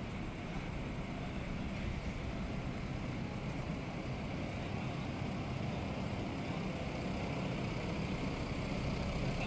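City street traffic: motor vehicles running close by, a steady low rumble that grows slowly louder.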